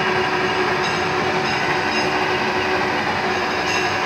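Vertical milling machine running, its cutter milling a round steel workpiece held in a chuck on a hand-turned rotary table: a steady machine drone with a few constant tones.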